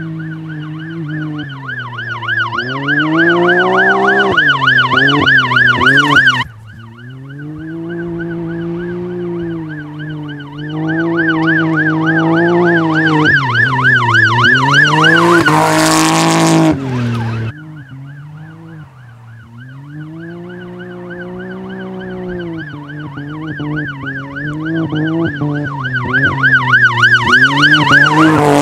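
Can-Am Maverick X3 XRS's turbocharged engine revving up and down as the side-by-side is driven hard on a dirt trail, with a loud rush of noise as it passes close. A fast-warbling high tone like a siren runs through it all.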